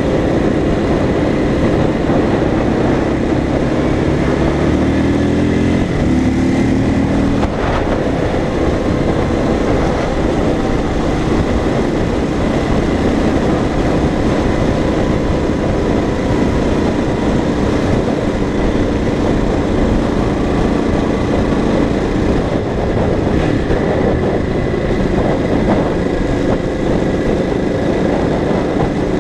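KTM supermoto's engine pulling at riding speed over a steady rush of wind noise. Its pitch climbs in steps for the first several seconds as the bike accelerates through the gears, then settles into a steady run.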